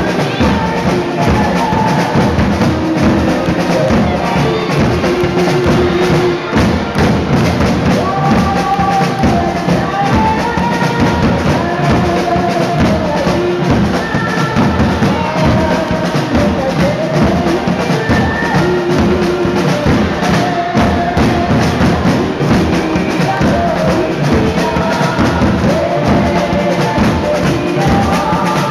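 Samba parade music: a dense, driving drum and percussion rhythm with a melody line over it, playing loud and steady throughout.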